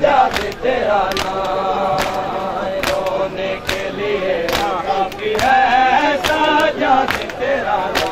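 A group of men chanting a lament in unison, with hand-on-bare-chest slaps of Shia mourning matam in steady time, about one slap a second.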